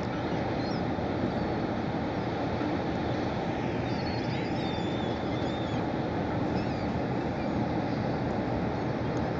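Steady low noise of a large bulk carrier passing on the river, mixed with wind, with faint high calls of water birds scattered through it.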